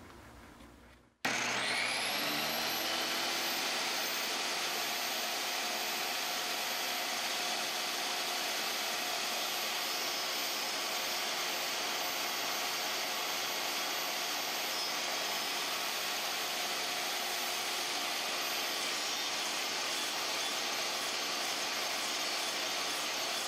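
Table saw switched on about a second in, its blade spinning up with a rising whine and then running steadily. The blade, tilted at 15 degrees, is raised a little at a time into a plywood pulley turned by hand on a jig, cutting the pulley's belt groove.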